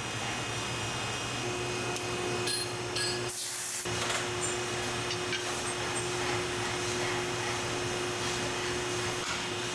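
Hydraulic power unit of a busbar punching, cutting and bending machine running steadily: a low hum with a faint steady whine, broken briefly about three and a half seconds in.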